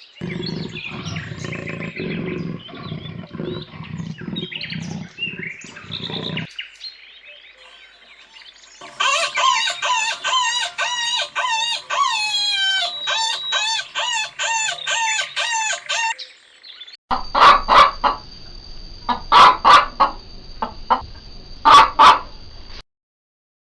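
Birds calling, poultry-like, in a few short clips one after another: first a rapid run of high chirps, then loud calls repeated in bunches that stop abruptly.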